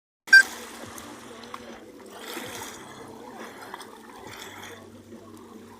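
Small waves of the Sea of Azov lapping and splashing at the shore. A brief, loud sharp sound comes just after the start.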